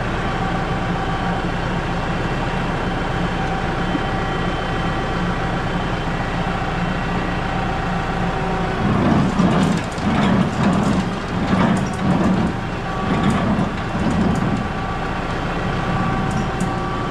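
Tractor engine running steadily, joined about halfway through by the repaired square baler cycling on the PTO: a heavy beat about once a second over the engine. This is the baler's first test run after the repair.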